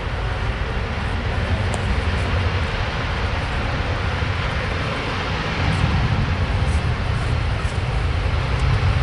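Jet engines of a twin-engine wide-body airliner running at high power as it rolls along a wet runway: a steady, deep jet rumble that grows a little louder about two-thirds of the way through.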